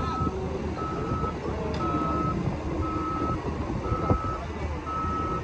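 Backup alarm of a Caterpillar wheel loader beeping steadily at one pitch, about one beep a second, over the machine's low engine rumble as it reverses.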